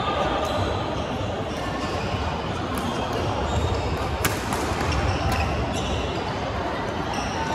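Badminton rally on a wooden hall floor: sharp racket hits on the shuttlecock and short squeaks of shoes, the loudest hit a little past halfway, over the echoing din of other courts playing at once.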